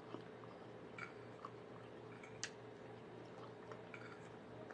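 Faint eating sounds: chewing and mouth smacking, with a few sharp clicks of a fork against the plate, the clearest about halfway through. A low steady hum runs underneath.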